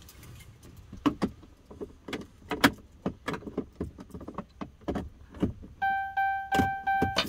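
A run of sharp clicks and knocks, then near the end an electronic chime in the truck beeping about three times a second, a steady tone with overtones.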